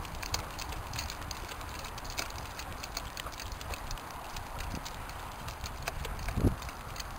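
Two dogs running in harness on asphalt while pulling a mini sulky: a quick patter of paws and nail clicks over the steady low rumble of the cart rolling on the road. A single louder thump comes about six and a half seconds in.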